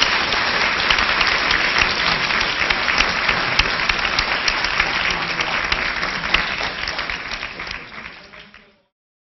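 Audience applauding: many hands clapping together, dying away near the end before the sound cuts off.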